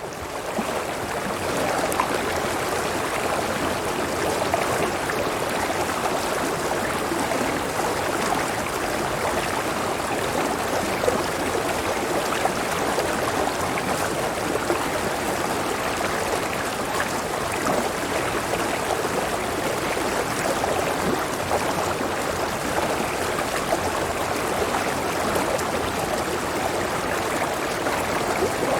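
Running water, as of a stream, flowing steadily. It fades in over about the first second, then holds an even level.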